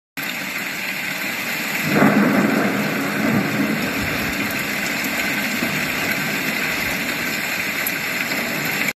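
Thunderstorm sound effect: a steady hiss of rain, with a clap of thunder about two seconds in that rumbles on and eases back into the rain.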